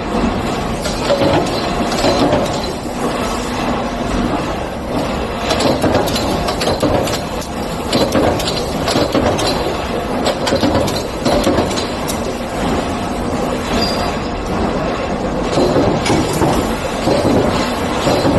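A hole saw cutting: a loud, steady mechanical grinding with irregular rattles and knocks, swelling and easing every second or two.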